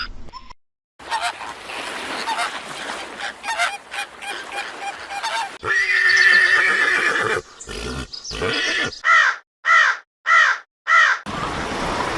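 Animal calls: a long pitched call about six seconds in, then four short, arching calls in quick succession near the end.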